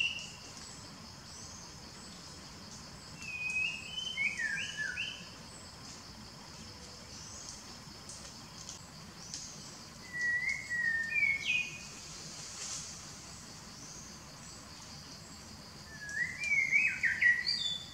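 A songbird sings three short groups of whistled, gliding phrases, a few seconds apart, over a steady high drone of insects.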